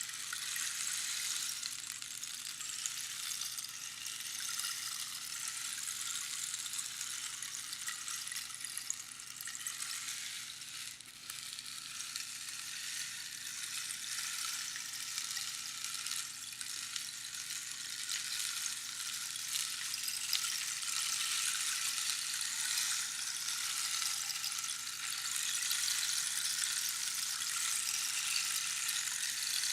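Rainstick: small pebbles or beans trickling down a hollow tube past the pins inside, a continuous fine pattering hiss like falling rain. It dips briefly about eleven seconds in, then runs on steadily.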